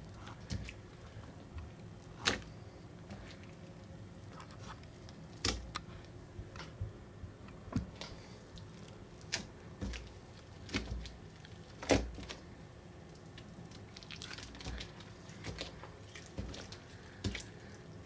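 Hands squeezing and pulling thick, gritty slime made from earthen excavation blocks soaked in water. Irregular wet squelches and drips as strands fall back into the bowl, the loudest about two seconds in and near twelve seconds.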